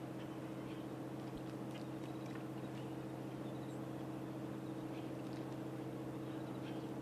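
Boat engine running at a steady cruising speed, a low even drone with faint scattered clicks over it.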